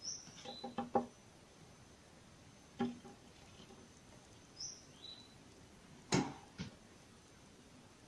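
Long-tailed tit giving two thin, high, falling calls, with a few light, sharp taps on the window glass, a quick cluster just after the first call and single knocks later, typical of the bird tapping at the pane.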